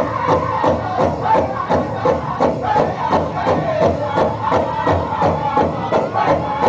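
Powwow drum group singing a prairie chicken dance song, with a steady beat on the big drum at about three beats a second.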